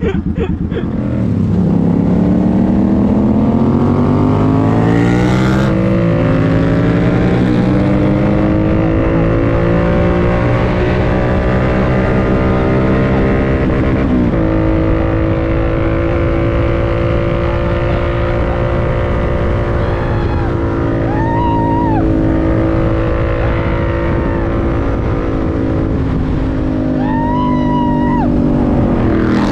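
Suzuki Boulevard C50's V-twin running through a Cobra aftermarket exhaust, pulling away and rising in pitch up through the gears for the first several seconds, then cruising at a steady speed with one more gear change about halfway through.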